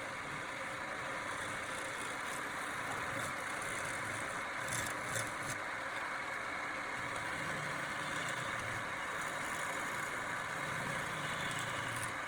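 A steady mechanical drone with no change in pitch, with a few short clicks about five seconds in.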